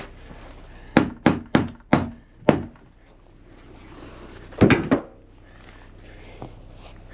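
A run of five sharp wooden knocks, each about a third of a second apart, then a short cluster of heavier knocks a couple of seconds later. It is the wooden wall and roof panels of a DIY portable panel cabin being handled and knocked together as the cabin is taken apart.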